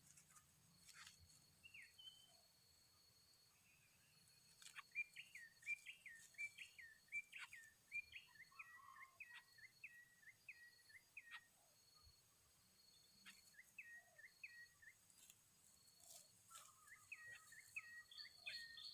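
A bird calling faintly in runs of short, evenly repeated chirps, about two a second, with pauses between runs. A thin steady high tone runs underneath for the first two thirds and then stops.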